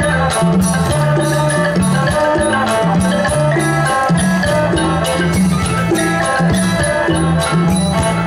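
Isan pong lang folk band playing a lively piece: interweaving melodic lines over a repeating bass figure and a steady drum beat.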